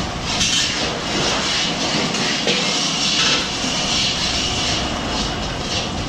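Steady hiss and roar from an oiled iron griddle on a gas burner, with bobbatlu flatbreads frying on it.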